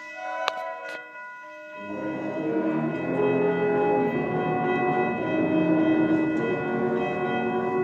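A wind band plays. Quiet held tones and two sharp clicks come first, then about two seconds in the full band enters loudly and keeps playing.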